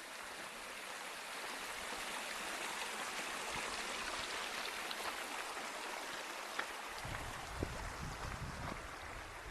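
A creek running and splashing beside the trail, heard as a steady rushing that swells slightly midway. A low rumble comes in during the last couple of seconds.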